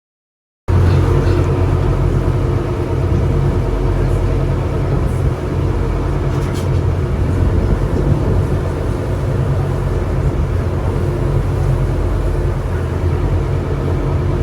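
River shuttle boat's engine running steadily with a low, even drone and water and wind noise over it, cutting in suddenly under a second in.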